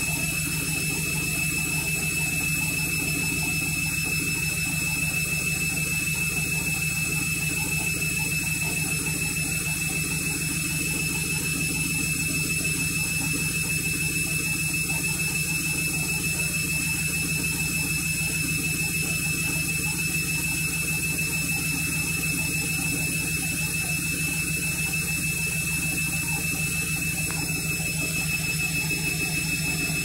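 Front-loading washing machine running at a steady speed: an even motor hum with a thin high-pitched whine over it and no knocking.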